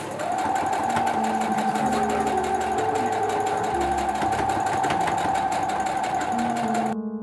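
Domestic electric sewing machine stitching fabric at a steady speed: an even motor whine with rapid needle clatter. It stops abruptly near the end.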